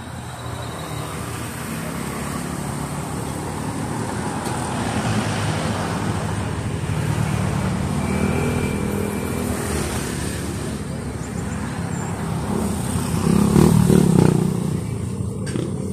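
Road traffic passing close by: cars and a motorcycle driving past with engine and tyre noise that builds gradually. It is loudest about two seconds before the end, as an SUV passes nearest.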